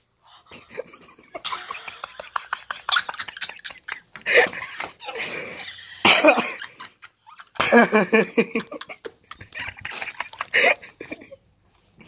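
A teenage boy coughing in several sudden bursts, the loudest about six seconds in, with some laughter mixed in.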